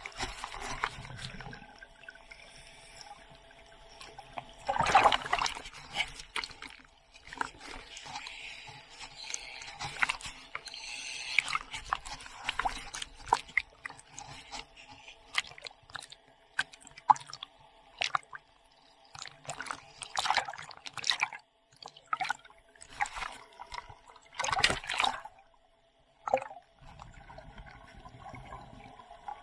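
Sea water sloshing and splashing around a diver's camera at the surface during a surface swim, with irregular bursts of splashing and sharp knocks, loudest about five seconds in and again near the end.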